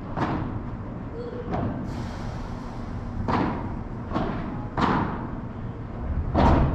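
Padel ball struck back and forth in a doubles rally: about six sharp hits from rackets and walls, roughly a second apart, echoing in a large hall. The heaviest thud comes near the end.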